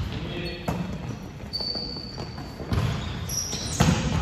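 Volleyball rally on an indoor court: the ball is struck sharply about four times, with short high squeaks of shoes on the court floor in between.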